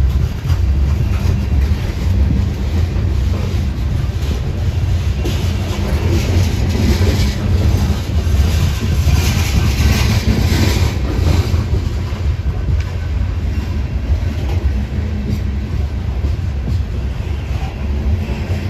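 Coal cars of a freight train rolling past close by: a steady low rumble of steel wheels on rail with a clattering hiss. The high, harsh part of the sound grows stronger for a couple of seconds near the middle.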